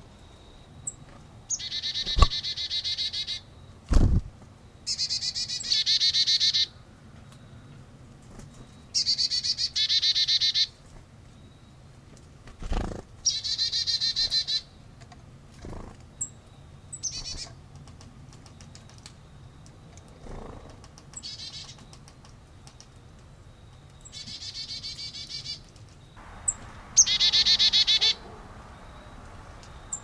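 Carolina chickadee giving repeated harsh, buzzy 'dee-dee-dee' calls, about eight bouts of one to one and a half seconds each. A few sharp knocks come between them, the loudest about four seconds in.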